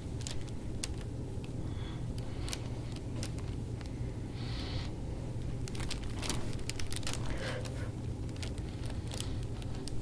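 Faint scattered clicks and rustles of hands and a metal gua sha tool working over oiled skin, over a steady low hum, with a short hiss about four and a half seconds in.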